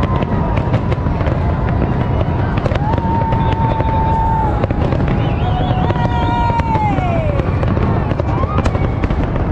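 Dense, continuous barrage of aerial fireworks shells bursting, many bangs and crackles overlapping without a break. A long held high tone sounds over it twice near the middle, the second one falling away at its end.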